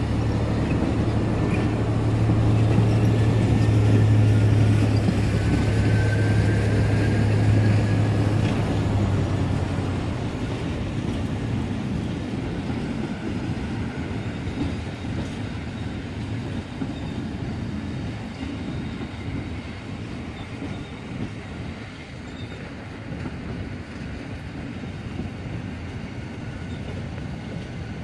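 A Rhaetian Railway metre-gauge train, electric locomotive and coaches, passing close by with a low electric hum and rolling wheel and rail noise, loudest a few seconds in. A brief faint wheel squeal comes partway through. The hum drops away and the rolling fades as the coaches pull past.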